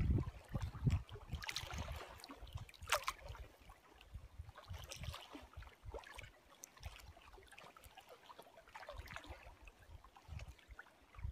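Choppy lake water lapping and splashing in small irregular slaps close to the microphone, with wind gusting on the microphone, strongest in the first second.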